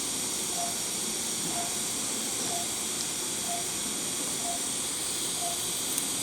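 Operating-room patient monitor beeping, a short beep of the same pitch about once a second, in time with the patient's pulse. A constant hiss runs underneath.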